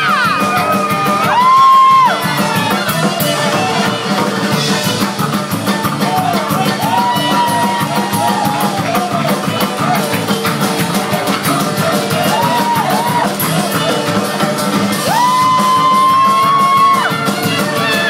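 Live band music: a fast, steady drum beat under a melody of long held notes that slide up into pitch and bend, returning every few seconds.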